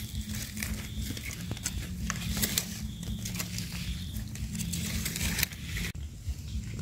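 Irregular crackling, snapping and rustling of dry leaf litter and twigs, from footsteps and hands working on the forest floor while picking wild mushrooms.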